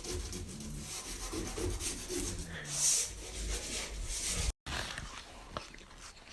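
A hand tool scraping and rubbing over a wall in repeated rough strokes, as when filling holes with a filler knife. It cuts off abruptly about four and a half seconds in, leaving a quieter stretch with a few light clicks.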